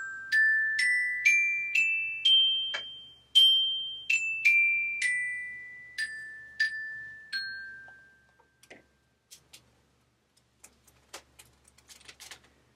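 Small metal-bar glockenspiel struck with a ball-headed mallet, playing single ringing notes about twice a second in a run that climbs up the scale and then steps back down. The notes stop about seven and a half seconds in, leaving only faint taps and rustles.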